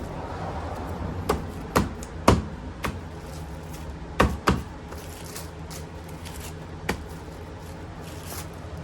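About seven sharp clicks and light knocks at uneven spacing, the loudest just past two seconds in and a pair a little past four seconds, from plastic tail-light and trim parts being handled and tapped into place, over a steady low hum.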